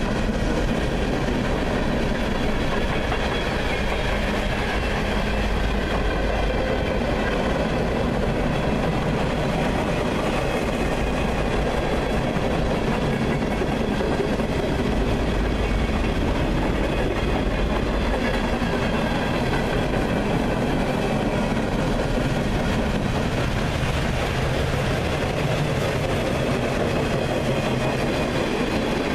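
CSX freight train rolling past steadily, its wheels running on the rails with a continuous loud rumble.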